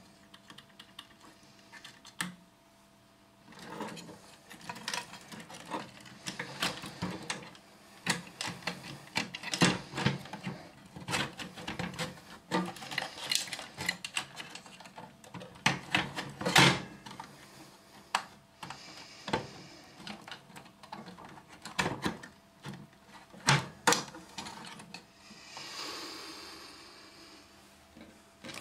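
Irregular clicks, knocks and rattles of the Zebra P320i card printer's plastic and metal parts being handled and fitted during repair, with a short rubbing, scraping sound a few seconds before the end.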